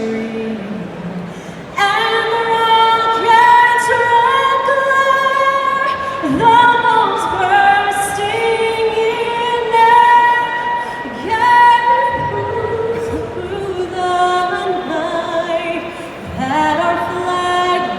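A woman singing a slow melody in long held notes that step up and down in pitch.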